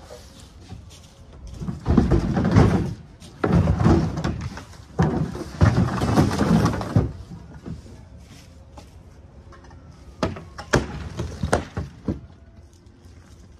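Hollow plastic storage-shed panels being dragged, stacked and knocked against each other: three long bursts of scraping and clattering in the first half, then a run of sharp hollow knocks a little past the middle.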